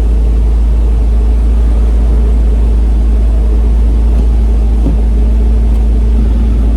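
Porsche Boxster's flat-six engine idling steadily.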